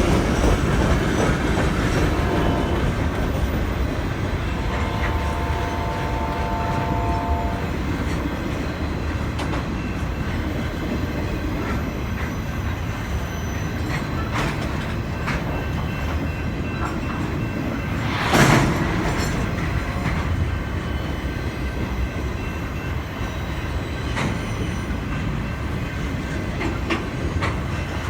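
Cars of a manifest freight train rolling past with a steady rumble and wheel clatter. A faint steady tone sounds for about three seconds, starting about five seconds in, and a single loud bang stands out about eighteen seconds in.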